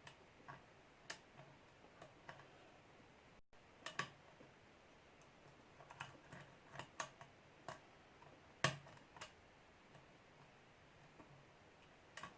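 Short hook pick working the pins of a Welch lock: irregular faint metallic clicks, the loudest about four and nine seconds in.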